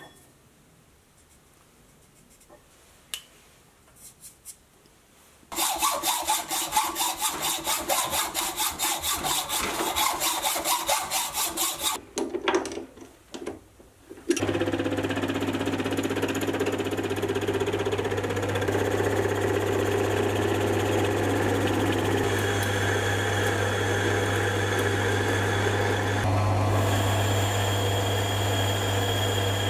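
A few light clicks of steel parts being handled, then rhythmic rasping strokes of a hand tool working metal stock, about three a second, for several seconds. After a few knocks as the lathe chuck is tightened, a small metal lathe starts and runs with a steady motor hum while spinning the steel bar, its tone shifting a few seconds before the end.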